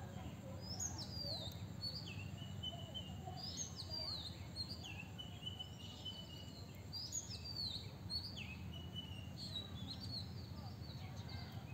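Birds chirping and calling, many short, falling notes overlapping one another, over a steady low background rumble.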